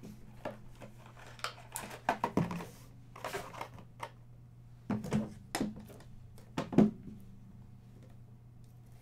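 Scattered clicks, taps and knocks of hands handling trading-card packaging and shrink-wrapped card boxes on a table, with one sharper knock about two-thirds of the way through. A steady low hum runs underneath.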